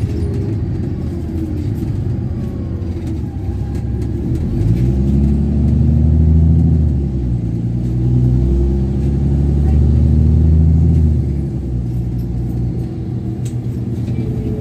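Bus engine and loud exhaust heard from inside the bus: a steady low rumble. From about four seconds in, the engine pulls harder and louder, breaks off briefly at a gear change around seven seconds, pulls again, and eases back near eleven seconds.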